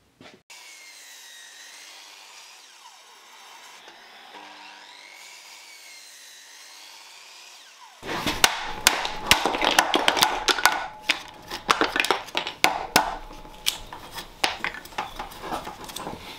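Claw hammer knocking out the thin slices of waste between saw kerfs in a timber half-lap joint: a rapid, irregular run of sharp wooden knocks and cracks as the slivers snap off. It starts suddenly about halfway through, after a quieter stretch of wavering tones.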